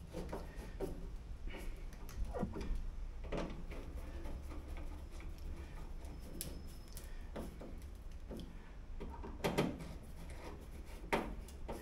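Scattered small clicks, taps and rubbing of metal door-lock parts being handled and screwed into place, with a couple of louder knocks in the last few seconds, over a low steady hum.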